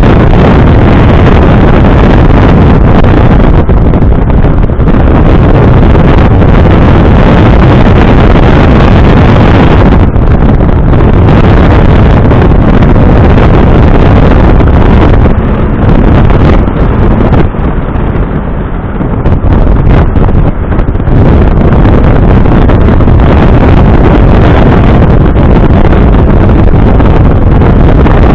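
A Smart Roadster driving at speed, heard as heavy wind buffeting on the microphone mixed with road and engine noise. It is very loud and overloaded throughout, easing for a few seconds a little past the middle.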